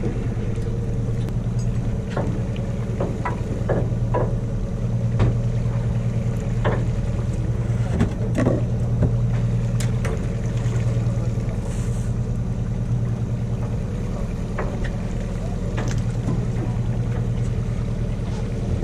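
A fishing boat's engine running steadily at idle, a low even hum with a faint pulse, with scattered short clicks and knocks on deck.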